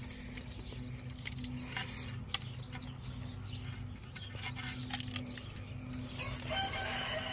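A rooster crowing near the end, over a low steady hum and a few light clicks.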